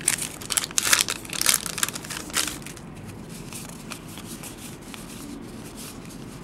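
Foil wrapper of a 2009 Topps Allen & Ginter baseball card pack crinkling and tearing as it is ripped open, a dense run of crackles that stops about two and a half seconds in. After that come only faint ticks of the cards being handled.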